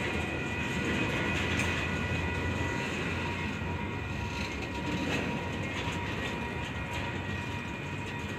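Union Pacific intermodal freight train rolling slowly as it slows toward a stop: a steady low rumble with thin, steady high tones over it and a few faint clicks.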